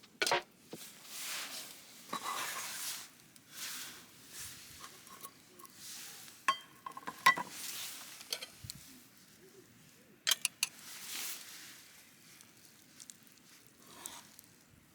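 Camp cooking: utensils clinking and scraping on cookware, with several sharp clicks scattered through and soft hissy patches between them.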